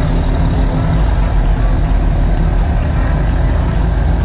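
Pickup truck engines running close by with a steady low drone, as one truck pulls away.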